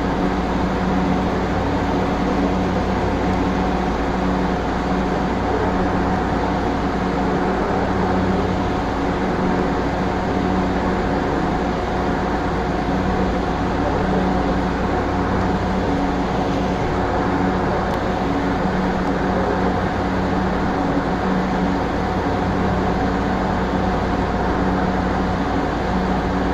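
Light-rail train running along the track, heard from inside the driver's cab: a steady rumble of the running train with a constant hum and a few held tones.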